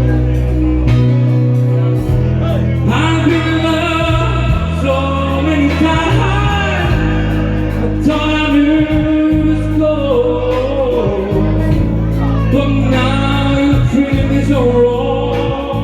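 Loud song introduction with a steady bass and a long, gliding lead melody, played live.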